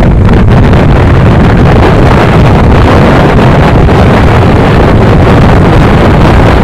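Loud, steady wind rumble on the microphone of a handlebar-mounted phone on a motorcycle moving at highway speed.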